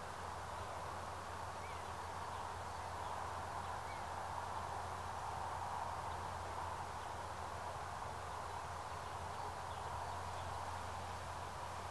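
Steady outdoor background noise with a low hum underneath, and a couple of faint, short bird chirps in the first few seconds.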